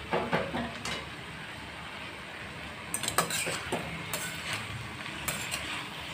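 Metal spatula stirring and turning cabbage and chana dal bhaji in a dark kadhai, with sharp clinks and scrapes against the pan in two bouts: one at the start and one from about three seconds in.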